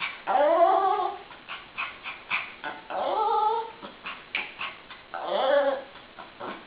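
Shih tzu 'talking' to a broom: three drawn-out whining, grumbling calls, each sliding up in pitch as it starts, with short clicks between them.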